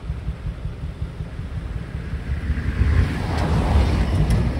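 Decorated truck's diesel engine running low and steady as it pulls slowly away, with a car passing close by, growing louder over the last two seconds.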